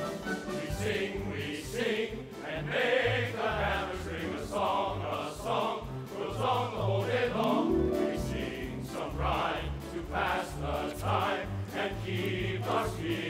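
Musical-theatre number: a chorus of voices singing over orchestral accompaniment with a pulsing bass line.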